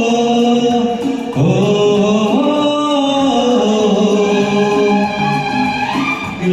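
Hindi film song sung by a man to a karaoke backing track, with long held notes that glide between pitches.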